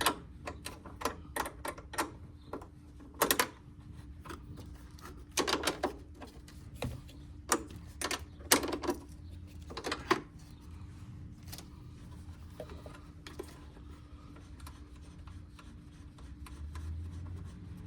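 Ratchet wrench and hand tools clicking irregularly as the small 10 mm nuts on a fuse box are undone, with a few tighter clusters of clicks, over a faint steady hum. The clicking stops about eleven seconds in.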